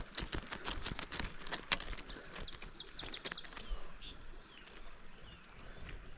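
A songbird calling a quick run of about seven short high notes about two seconds in, with fainter high chirps after. Sharp clicks and rustles fill the first half.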